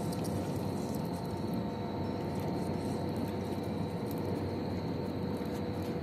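A steady mechanical hum at an unchanging pitch, like a motor running at constant speed, with a few faint clicks.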